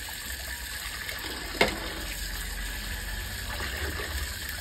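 Tap water running into a plastic basin while a crab is scrubbed and rinsed in it by hand to wash off mud. One sharp knock about a second and a half in.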